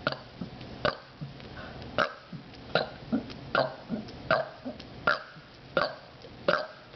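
A woman burping on purpose in a quick string of short burps, about nine of them, roughly every three-quarters of a second.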